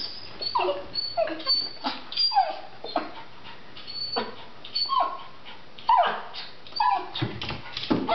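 Small dog whining and yelping over and over, a string of short cries that each slide down in pitch. It is begging for food it can't reach on the kitchen counter.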